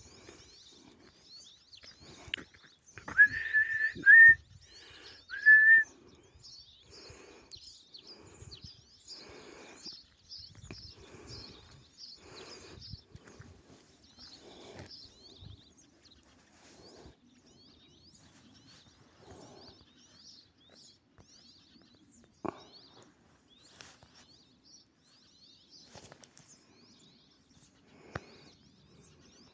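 Three loud, steady high whistles about three to six seconds in, over small birds chirping throughout. Footsteps crunch on a gravel track at about one a second for a while after the whistles.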